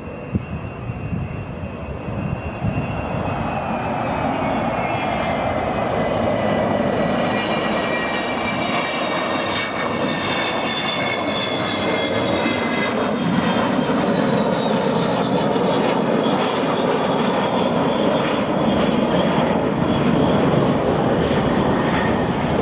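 Fixed-wing aircraft engines running loud and steady as a plane flies the display, the noise building over the first few seconds, with a high whine that falls in pitch early on and then holds.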